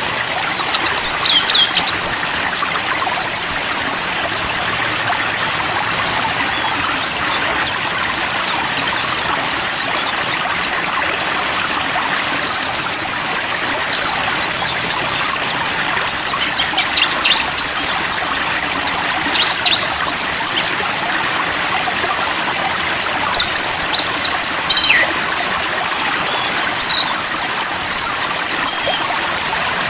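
Running stream water with a steady rushing sound, over which a songbird gives short bursts of high, rapid chirps and whistles every few seconds, thickest near the end.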